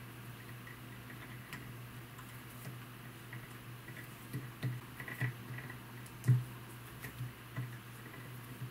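Faint, scattered ticks and clicks of fingers handling and crossing strands of fluorocarbon fishing line while braiding it, over a steady low hum; the loudest click comes about six seconds in.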